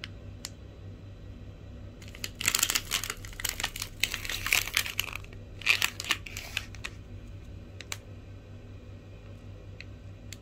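A plastic packet crinkling as it is handled, in two spells of a few seconds each, with a few sharp clicks, over a low steady hum.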